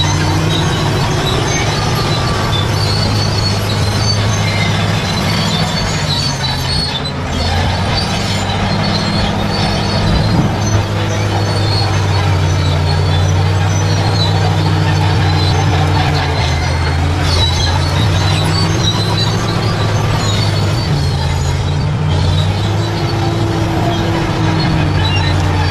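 Bulldozer's diesel engine running steadily under load, with intermittent high squeaks from its steel tracks.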